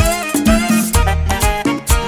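Instrumental passage of a Latin dance band's song: percussion keeping a steady beat under sustained instrument lines, with no singing.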